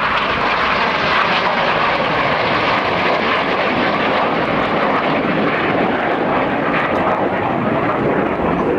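Red Arrows BAE Hawk T1 jets flying past: a steady rush of jet noise that grows duller over the last few seconds as the upper range falls away.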